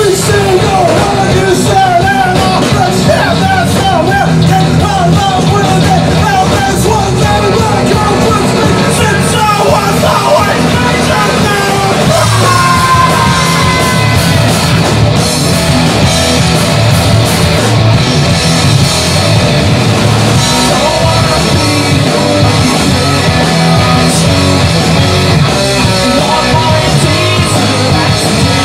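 Live rock band playing loud, with electric guitars and drums under a lead vocal that is partly sung and partly shouted.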